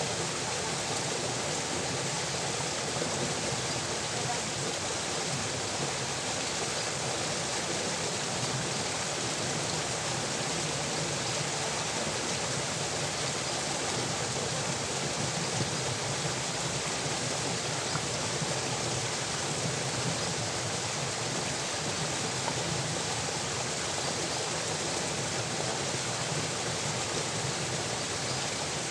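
Steady rush of water flowing along an irrigation channel, pouring out of a culvert under a stone crossing.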